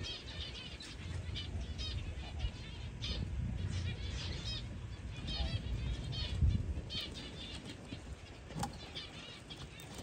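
Small aviary birds chirping over and over in short, high calls, over a low rustling and handling noise.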